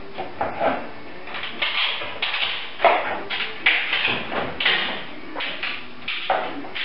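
Painted timber door stop being pulled off a door frame. It gives a string of short, irregular cracks and scrapes as the strip and its nails come away.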